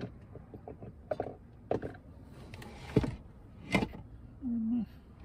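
Scattered knocks and clicks of containers and utensils being handled while food is prepared, with a short hissing rustle in the middle and a brief low hum near the end.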